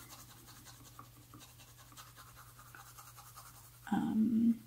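Derwent Lightfast coloured pencil shading on paper: faint, steady scratching of repeated back-and-forth strokes as colour is laid down. Near the end a brief louder vocal sound cuts in.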